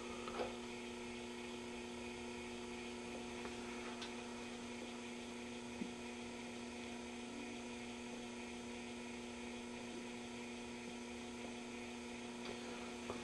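Steady mains hum from a tube radio being powered up slowly on a variac, with a few faint ticks.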